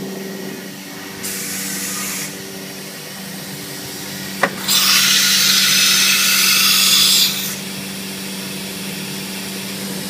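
Pneumatic automatic tool changer on a CNC router's 12 HP HSD spindle, changing tools. A short hiss of compressed air comes about a second in, then a single sharp clunk of the tool clamp about four and a half seconds in, followed at once by a loud hiss of air lasting nearly three seconds. Under it all runs a steady machine hum.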